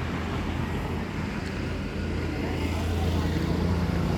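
Road traffic: a motor vehicle's engine running past with tyre and road noise, a steady low hum that grows louder in the second half.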